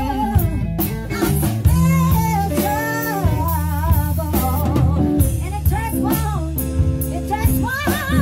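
A live band playing a song: a singer with guitar and drum kit, the sung melody rising and falling over steady drum hits.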